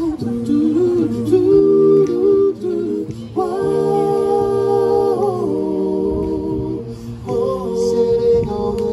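Four-man a cappella vocal group singing wordless close harmony in held chords. A full chord about three and a half seconds in is held for nearly two seconds before the voices shift to a new chord.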